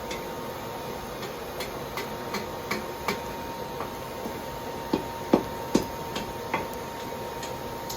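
Scattered light metallic clicks and taps from tools and hot stock being handled at a coal forge, with a few louder knocks about five to six seconds in, over a steady mechanical hum.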